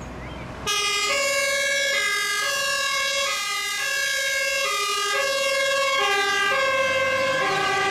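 Two-tone siren of a fire engine on an emergency run, alternating steadily between a high and a low note. It cuts in well under a second in.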